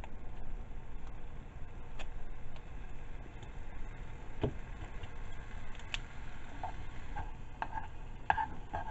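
Diced chicken cooking in oil in a cast-iron skillet with a steady sizzle. A few scattered clicks sound, then in the last couple of seconds a utensil knocks and scrapes against the pan several times as the pieces are turned.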